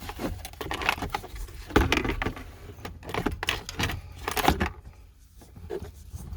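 Clicks, taps and rustles of hands working small wiring parts: a crimp-on spade terminal being pushed onto the charger socket's terminal, the handling dying down after about five seconds.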